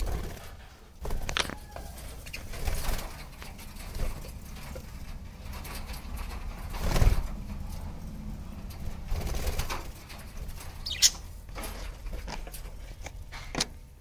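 Budgerigars in an aviary flapping their wings in several short flurries as they fly between perches, with a short high chirp near the end.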